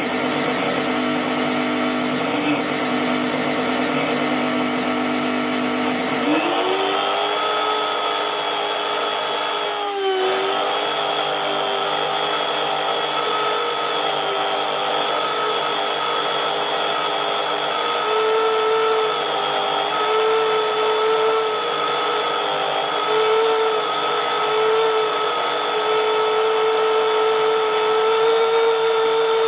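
Small brushed universal motor running fast on an AC supply at overvoltage: a steady high whine, its brushes sparking at the commutator. About six seconds in the pitch rises quickly and then holds, with a short dip around ten seconds.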